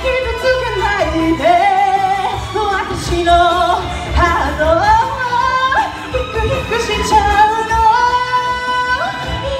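A woman singing a J-pop song live into a handheld microphone over a recorded backing track, holding long notes that slide up and down in pitch.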